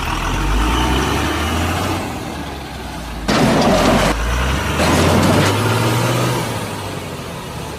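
Heavy vehicle engine running with a low steady hum, with two louder hissing bursts, the first about three seconds in and the second about five seconds in.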